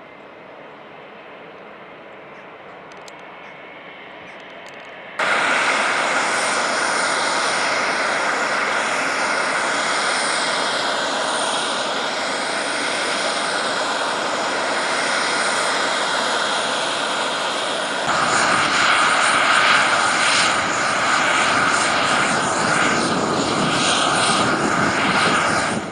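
Jet aircraft engine noise. It starts faint and slowly grows for about five seconds, then jumps suddenly to a loud, steady rush with slowly sweeping tones. About eighteen seconds in it steps up again, louder and with a sharper tone.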